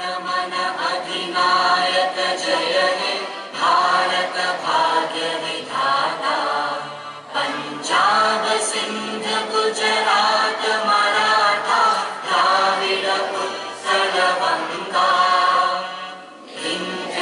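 A group of voices singing a song together in chorus, in phrases a few seconds long with short breaks between them, over a steady low note.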